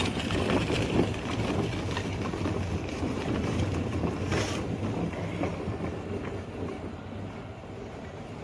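Hard plastic wheels of a children's wagon rolling over gravel, a crunchy rattling rumble that fades as the wagon moves away.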